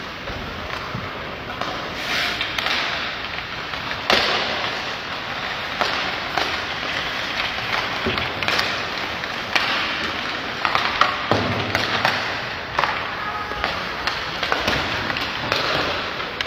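Ice hockey play: sticks slapping pucks and pucks knocking against sticks and boards, with skate blades scraping the ice. Sharp knocks come at irregular intervals, a strong one about four seconds in.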